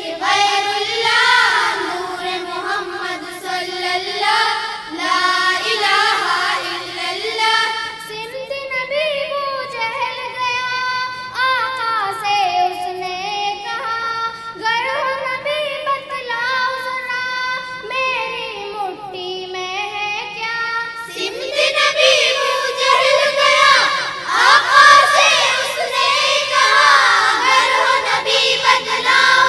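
Children singing a hamd, a devotional hymn in praise of Allah, through a stage microphone; the voices swell louder and fuller in the last third.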